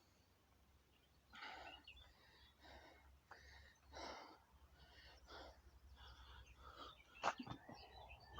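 A man breathing hard and fast, a noisy breath about every second, from the exertion of a long set of burpees. One sharp knock comes near the end.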